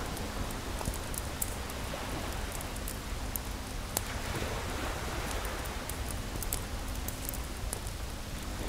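Waves washing over beach stones, a steady hiss, with a small bonfire crackling in short sharp snaps scattered throughout.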